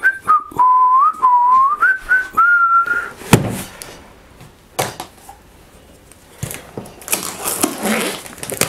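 A person whistles a short tune for about three seconds, then two thumps as a cardboard box is set down. Near the end a knife scrapes and slits through the packing tape on the box.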